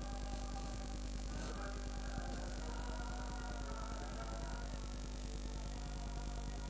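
Steady low mains hum and tape hiss, with faint held tones of background music under it.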